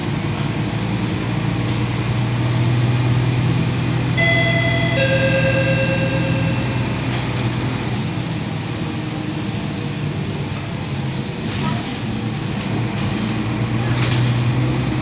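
Mercedes-Benz OC500LE city bus under way, heard from inside the cabin: steady engine and road hum. About four seconds in, a two-note electronic chime sounds, a short higher note and then a longer lower one, typical of a bus stop-request bell.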